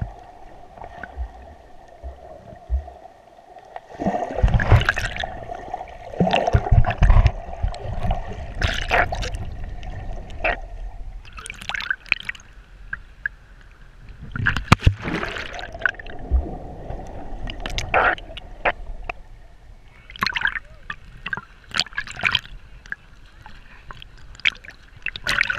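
Seawater sloshing and gurgling around a waterproof action-camera housing held at the waterline, with irregular splashes every two or three seconds as the water washes over it.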